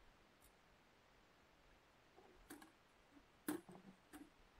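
Near silence broken by a few short, faint clicks in the second half, the loudest about three and a half seconds in.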